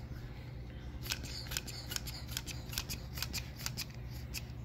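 Mityvac hand vacuum pump being squeezed repeatedly, a quick run of sharp plastic clicks, a couple of strokes a second, starting about a second in and stopping near the end. It is pulling vacuum on an oiled piston to test the seal of newly installed piston pin retainers.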